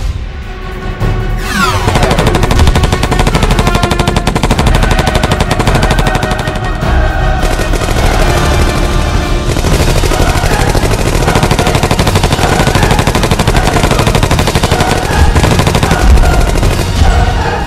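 Long, continuous burst of automatic rifle fire, a rapid stream of shots starting about two seconds in, mixed over action music.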